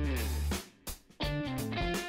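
Background guitar music, an instrumental with changing notes, breaking off briefly about halfway through.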